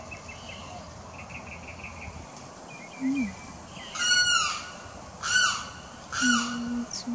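Limpkin giving three loud calls in quick succession starting about four seconds in, each a short cry that rises and then falls in pitch. Before them, faint rapid chirping trills repeat in short runs.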